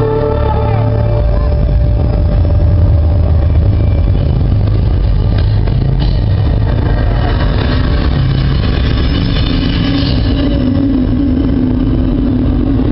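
Steady low rumble of a large outdoor crowd, with a low held tone coming in about two-thirds of the way through.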